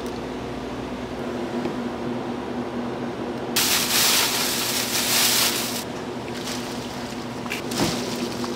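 Shredded cabbage dropped into a hot steel pan of red chili sauce, hissing loudly for about two seconds midway, over a steady low hum of kitchen equipment. A short knock near the end as chopped green onions go in.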